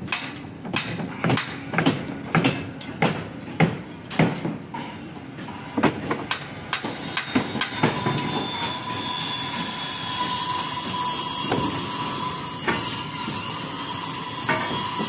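Hammer blows on plywood formwork, about two sharp strikes a second for the first five seconds. After that a steady din of site noise with a faint steady tone, and only an occasional knock.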